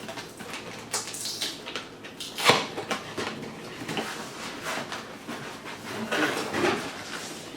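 Cardboard box and packaging being handled and opened: irregular rustling, scraping and clicks, with one sharper knock about two and a half seconds in.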